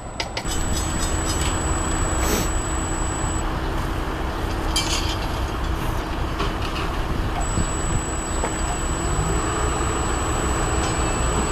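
SEPTA Silverliner IV electric multiple-unit train approaching: a steady low rumble with a faint hum that climbs a little in pitch near the end, and a thin high whine over it.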